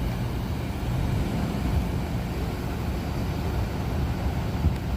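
Intercity bus's diesel engine running nearby with a steady low rumble.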